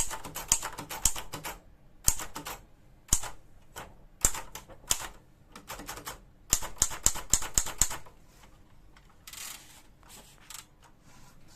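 Hermes Baby portable manual typewriter being typed on: the type bars strike in quick flurries, with slower single strokes between them. Near the end comes a short rasping sound and then one last click.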